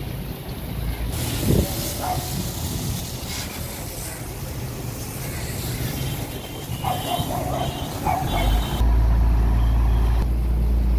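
Water jet from a hose spraying against a dump truck's wheels and body: a steady hiss. A loud low rumble comes in near the end.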